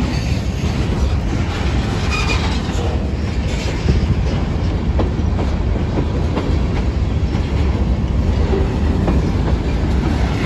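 Freight train cars rolling past at close range: a steady, loud rumble of steel wheels on rail, with a few scattered clicks as the wheels cross rail joints.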